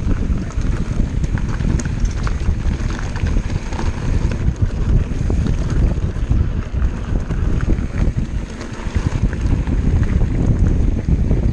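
Wind rushing over an action camera's microphone on a moving Orbea Laufey hardtail mountain bike, with the rumble of its tyres rolling over a rocky dirt trail and many small rattling clicks from the bike over the bumps.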